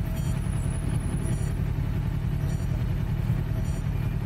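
Motorcycle engine running with a steady low rumble. A faint short high tick repeats about once every second and a bit.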